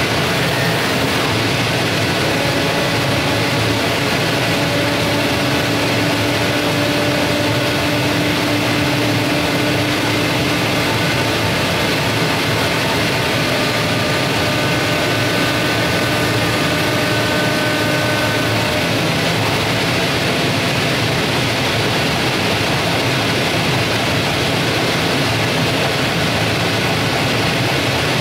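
Zund G3 flatbed cutting table running, its vacuum hold-down blower making a loud, steady noise. Faint steady whining tones ride over it and stop about two-thirds of the way through.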